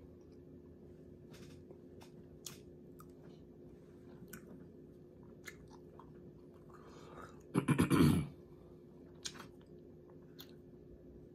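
Close-up chewing of barbecue-sauced turkey tips and fries, with scattered short wet mouth clicks and one louder, rough burst of mouth noise lasting under a second about eight seconds in.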